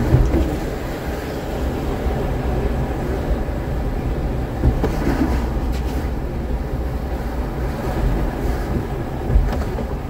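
Road noise heard from inside a moving car at speed: a steady low rumble of tyres and engine, with a few dull thumps.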